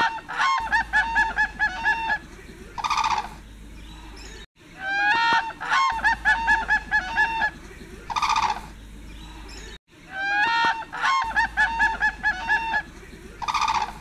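Honking crane calls: a long rising call, then a quick run of about eight short honks and a harsher, noisier note. The same few-second recording repeats three times, with a brief dropout before each repeat.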